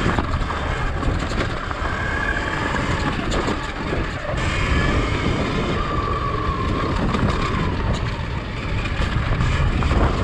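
Sur-Ron X electric dirt bike ridden fast on a dirt trail: steady wind rush over the handlebar-mounted camera and rumble from the knobby tyres, with a faint electric-drive whine rising and falling in pitch and scattered knocks and rattles from rocks and the bike.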